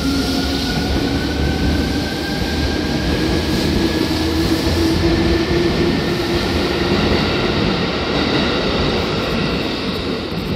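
Seibu 2000 series electric train, an armature-chopper-controlled set, running: a motor whine rises steadily in pitch as it picks up speed, over a steady rumble of wheels on track.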